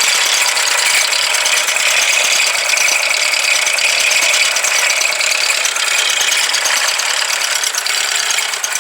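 Mazda CX-5 engine bay giving off a steady, dense metallic rattling clatter with little low rumble: an abnormal noise from the engine compartment of a nearly new car. It eases slightly near the end.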